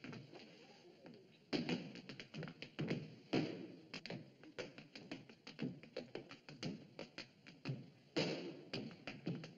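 A dancer's shoes tapping and stamping on a stage floor in a quick, uneven rhythm of sharp clicks. Three louder bursts come about a second and a half in, at three and a half seconds, and near the end.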